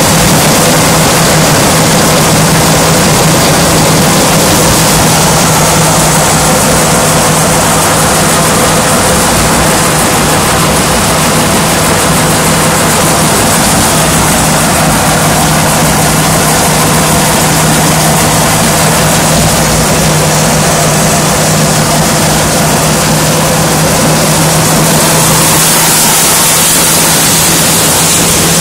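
Threshing machine running steadily at harvest, blowing out chopped straw: a constant low hum under a loud, even rushing noise that does not change.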